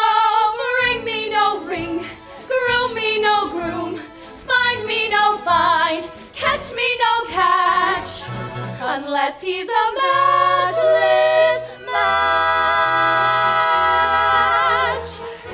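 Three young women singing a stage-musical number over instrumental accompaniment, phrase after phrase, closing on a long held note about twelve seconds in that breaks off just before the end.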